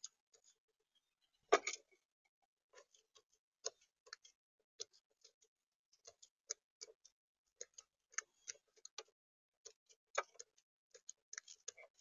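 Eurasian magpie pecking at mixed seed in a bird feeder tray: a string of irregular sharp clicks and taps from its bill on the grain and tray, with one louder knock about a second and a half in.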